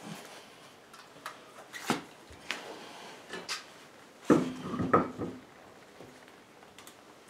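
An alloy wheel being lifted onto a car's hub: scattered knocks and metallic clinks, with a louder clatter of several knocks about four and a half seconds in as the wheel goes onto the hub.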